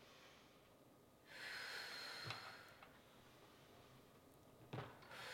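A woman breathing out hard through the mouth as she pulls up from a side bend: one long exhale of about a second and a half, a second one starting near the end. Two faint knocks fall in between.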